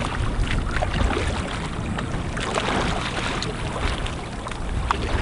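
Outdoor sound over open water: wind rumbling on the microphone, with small irregular splashes of water.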